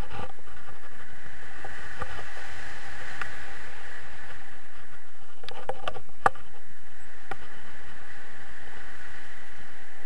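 Steady rush of airflow on an action camera's microphone during a tandem paraglider flight, with a few short knocks a little past halfway, the sharpest of them about six seconds in.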